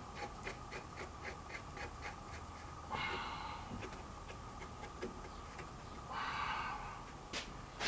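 Faint, regular metal clicking, about four a second for the first three seconds, as a nut is worked onto a front-suspension stud. Two short breaths come about three and six seconds in.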